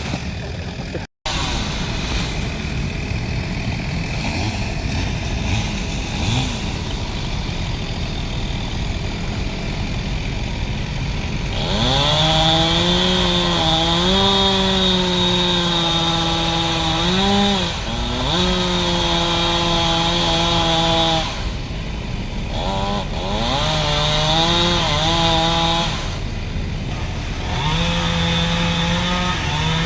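Chainsaw running at high revs throughout, broken by a brief gap about a second in. For the first twelve seconds it sounds rough and noisy. After that it settles into a clear, steady engine whine whose pitch dips and recovers several times.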